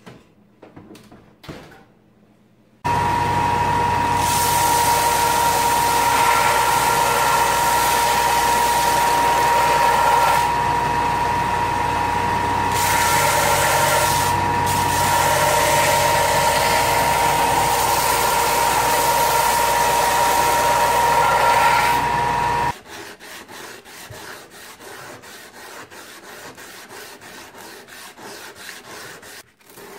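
A few faint clicks, then a belt grinder starts about three seconds in and runs steadily with a high whine as a laminated 1084/15N20 steel blade is ground on the belt. The grinder cuts off suddenly and gives way to quieter, rhythmic rubbing strokes of the blade being hand sanded.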